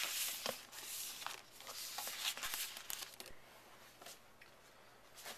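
Paper and cardboard packaging of a laptop box being handled: rustling and scraping with a few light knocks for about three seconds, then quieter.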